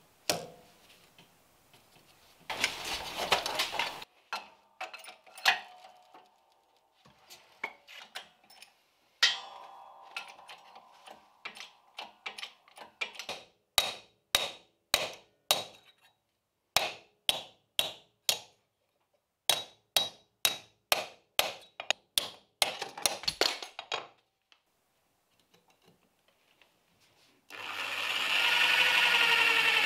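A run of sharp hammer blows on small steel bracket pieces, a few a second with short pauses, after a brief scraping noise about three seconds in. Near the end an electric drill in a bench drill stand starts up, its whine rising, and keeps running.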